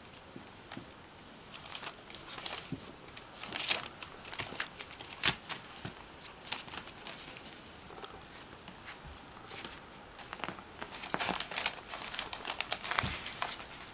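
Newspaper crinkling and rustling under the paws of three-week-old cocker spaniel puppies as they toddle over it, in irregular crackles that grow busier near the end.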